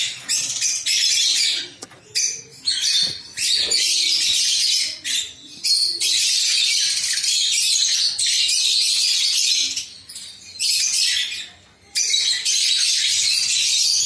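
Lovebirds calling: a shrill, high-pitched chatter in runs of one to two seconds with short breaks.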